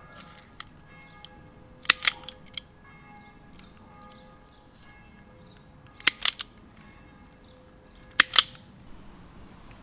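A hand wire stripper snapping on thin signal wires three times, each stroke a quick pair of sharp clicks.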